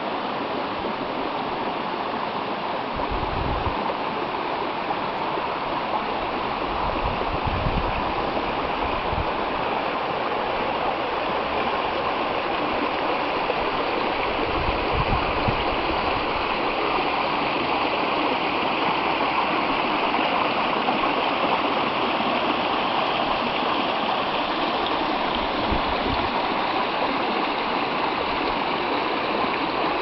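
The Rapidan River, a shallow rocky mountain stream, rushing and gurgling steadily over its stones, with a few brief low rumbles now and then.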